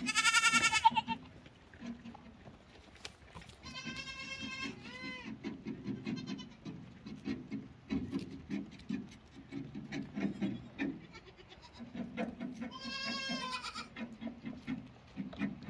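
Goat kids bleating: a loud, high bleat right at the start, two shorter ones about four seconds in, and one more near the end. Between the bleats comes a steady run of soft, low crunching and rustling as kids graze close by.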